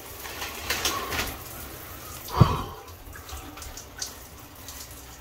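Shower water running and splashing over a person standing under it, with one short loud bump about two and a half seconds in.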